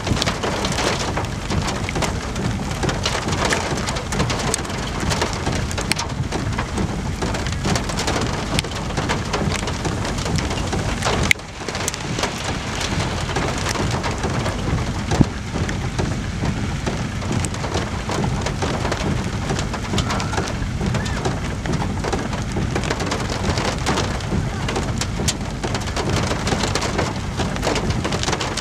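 Steady rain falling on a nearby surface, dense fine ticks over a heavy low rumble. The sound dips briefly about eleven seconds in, and there is one sharp tap around fifteen seconds in.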